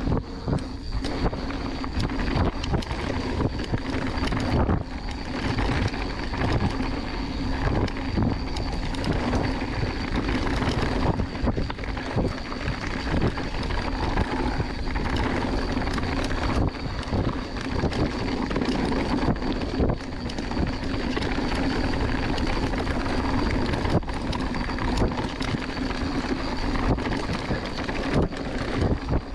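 Mountain bike riding fast down a dirt trail: tyre noise and wind on the microphone over a steady low hum, with frequent rattles and knocks from the bike hitting bumps.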